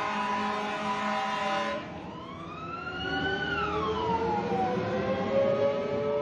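Fire truck siren wailing. At first it holds a cluster of steady tones, then it becomes a single slow wail that rises in pitch to a peak around the middle and falls away again.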